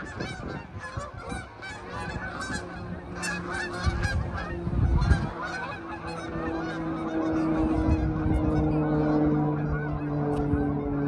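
A large flock of geese flying overhead, many birds honking at once in a dense, overlapping chorus. A steady low hum joins about halfway through and grows louder.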